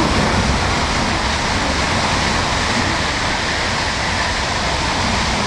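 Tōkaidō Shinkansen bullet train passing through the station at speed without stopping. A steady, loud rush of air and rail noise.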